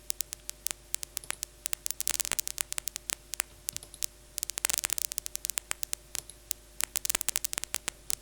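Synthesized paper-crumple crackle from the Vital software synth, driven by two random MIDI note generators at once: a stream of irregular sharp clicks, bunched in dense flurries about two seconds in, near five seconds and near seven seconds. A faint steady hum sits underneath.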